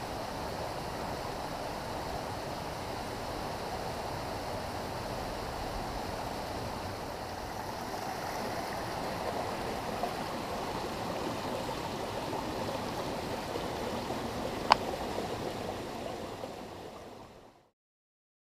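Steady rush of a mountain stream flowing over rocks, with a single sharp click near the end. The water sound fades out and stops about a second before the end.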